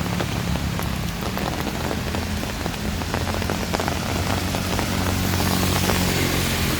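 Heavy rain pouring and spattering on hard surfaces, with a steady low hum beneath it. The rain's hiss grows brighter from about five seconds in.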